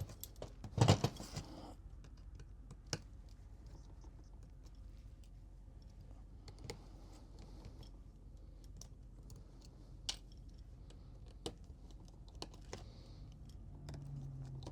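Scattered small clicks and taps of repair tools and parts being handled on an iPhone 12 Pro during screen replacement, with a brief louder clatter about a second in.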